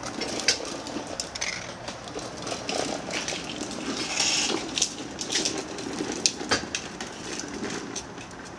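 Hard plastic wheels of a toddler's ride-on toy car rolling along a concrete sidewalk as it is pushed, a steady rattling rumble with many small irregular clicks.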